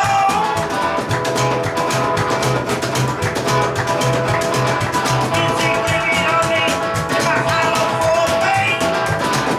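Band playing rock and roll live: a hollow-body electric guitar strummed over a fast, driving drum beat.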